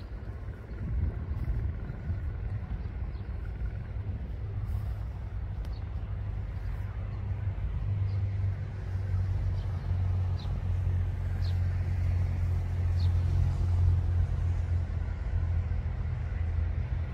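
Low, steady rumble of road traffic, growing louder in the second half, with a few faint, short high chirps above it.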